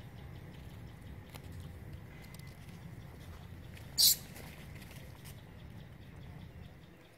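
Dry leaf litter rustling and crackling as a baby macaque moves over the forest floor, with one short sharp crackle about four seconds in, over a low steady rumble.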